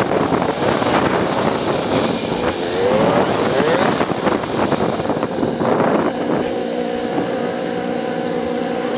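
Motorcycle engine heard from the rider's camera, running with wind rush and rising revs as it accelerates, then settling to a steady idle about six seconds in as the bike comes to a stop.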